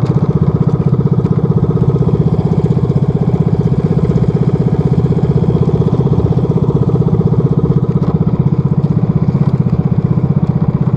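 Small engine of a motorized outrigger boat (bangka) running steadily with a fast, even pulse, driving the boat across open sea.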